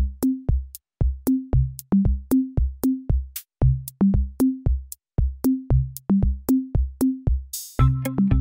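Electronic outro music: a steady drum-machine beat of kick and pitched drum hits. Near the end a short cymbal-like swell leads into sustained bass and synth chords.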